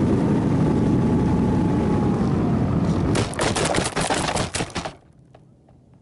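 RC model plane flying low with wind rush and a motor whine slowly falling in pitch, then about three seconds in it lands on desert gravel, skidding with a dense crunching rattle of stones against the airframe, and stops abruptly about five seconds in.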